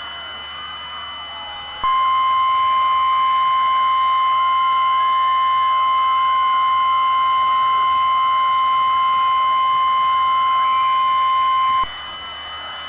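Emergency-alert attention tone: a single loud, steady high tone held for about ten seconds. It starts about two seconds in and cuts off sharply near the end. Fainter steady high tones and a warbling background sound under it.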